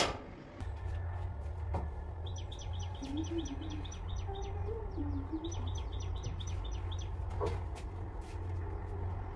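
A bird chirping in two quick runs of rapid, evenly repeated high chirps, over a steady low hum.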